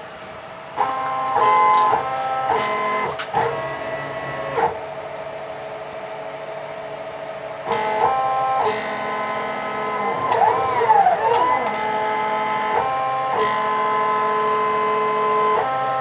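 Stepper motors driving the X and Y axes of a Shizuoka AN-S CNC milling machine through a test program: a whine whose pitch jumps between a few steady notes as the axes change speed, starting up about a second in. Around the middle and again near the end the pitch sweeps up and down as the motors speed up and slow down.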